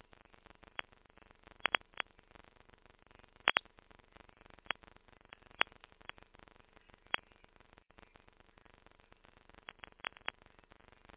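Grainy, glitchy digital audio from a botched low-quality encoding: a steady crackly hiss with sharp pops and clicks at irregular moments, some in quick clusters, and a muffled, band-limited tone.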